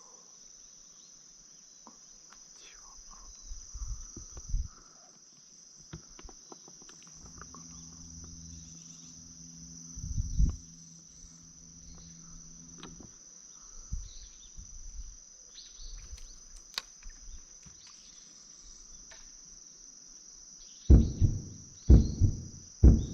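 Steady high-pitched chorus of insects, crickets by the sound, chirring without a break. A low hum runs for a few seconds in the middle, and scattered low knocks are heard, with four heavy thumps near the end that are the loudest sounds.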